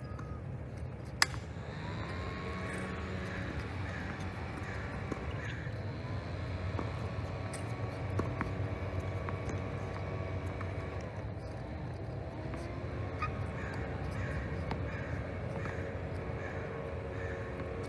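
A bird calling in two runs of short calls, about two a second, with a steady low outdoor rumble underneath. About a second in comes one sharp crack of a tennis racket striking a ball, with a few fainter ball hits later.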